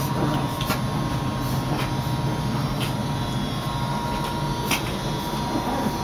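A steady background hum with a few scattered light clicks and scuffles as a chihuahua and another small dog wrestle in play on carpet.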